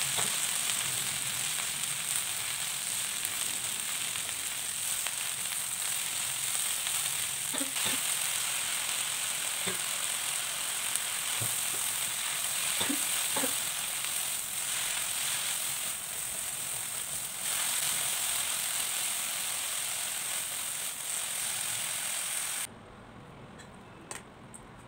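Water spinach sizzling as it is stir-fried in a hot nonstick pan, with a spatula scraping and knocking against the pan now and then. The sizzling stops suddenly near the end, leaving quiet room tone.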